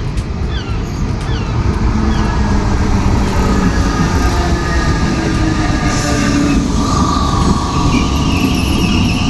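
Green DART electric commuter train running into a station platform: a steady rumble of wheels on rails that builds as it comes alongside, with a high wheel squeal in the last couple of seconds.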